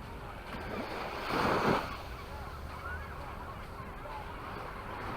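Sea waves washing on a beach, with one wave breaking and rushing in about a second and a half in.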